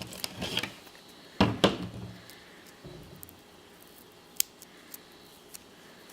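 Small objects being handled on a table: a few short rustles and knocks, the loudest about a second and a half in, then a single sharp click about four seconds in and a few faint ticks.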